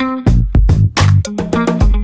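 Background music with a steady drum beat and plucked instrument notes, in a funk style.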